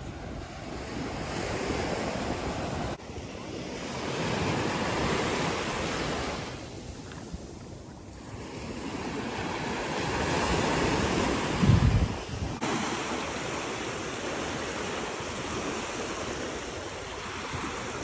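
Small waves breaking and washing up over the sand, swelling and ebbing every few seconds, with wind rumbling on the microphone. A brief loud low bump about two-thirds of the way through.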